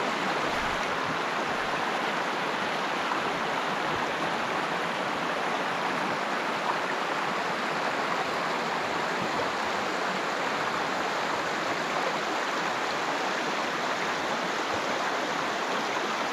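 Shallow river running over a pebble bed, a steady even rush of water.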